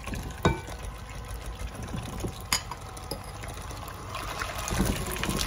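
Two raw eggs sliding and plopping out of a small glass bowl into softened cream cheese in a mixing bowl, with two light clinks. Near the end a KitchenAid electric hand mixer starts running in the batter.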